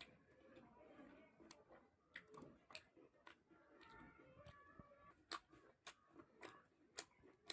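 Faint, close-up chewing of puri with chana dal curry: irregular wet mouth clicks and smacks, with a few sharper ones about five and seven seconds in.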